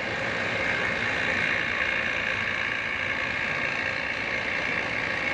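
Steady, loud machinery noise in a ship's machinery space, even throughout, with no starts, stops or knocks.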